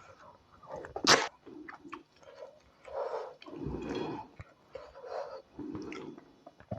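Close-miked ASMR chewing and mouth sounds while eating tilapia pepper soup with white starch, uneven and irregular, with one sharp smack about a second in.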